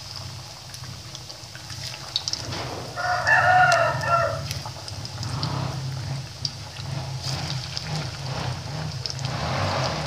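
Lemper deep-frying in hot oil, sizzling with scattered crackling pops over a steady low hum. About three seconds in, a rooster crows once, the loudest sound, lasting just over a second.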